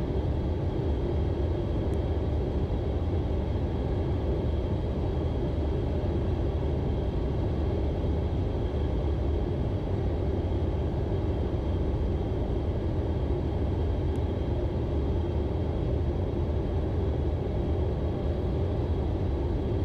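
Steady cockpit noise of an Embraer Phenom 300 on final approach with gear down and full flaps: rushing airflow and the hum of its twin turbofan engines, with a faint steady high whine over it.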